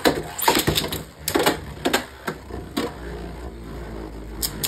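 Two Beyblade Burst spinning tops, Mirage Fafnir against a Luinor, battling in a plastic stadium. Sharp plastic clacks as they hit each other come about twice a second for the first two or three seconds. Then a steady low whir of a top spinning on the stadium floor, with one more clack near the end.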